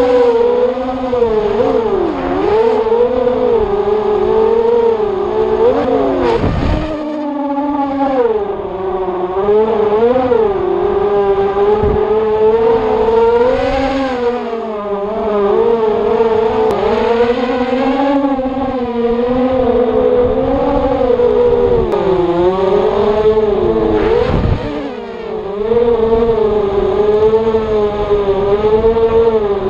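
Racing quadcopters' brushless motors and propellers whining, the pitch wavering up and down continuously as the throttle changes. There is a brief sharp drop in pitch about a quarter of the way in and again near the end.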